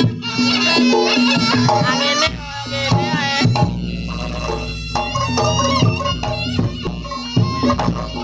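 Reog Ponorogo accompaniment music: a shrill, wavering shawm (slompret) melody over drums, with a deep low drone through the middle.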